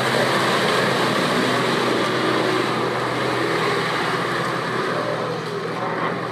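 An off-road 4x4's engine running steadily, getting slowly quieter toward the end.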